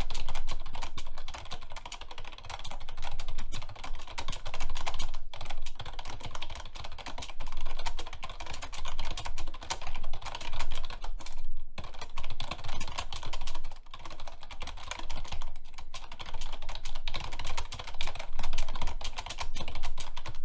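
Fast, hard touch typing on a computer keyboard: dense rapid keystroke clicks in quick flurries, with brief pauses about 5, 11 and 14 seconds in, stopping abruptly at the end.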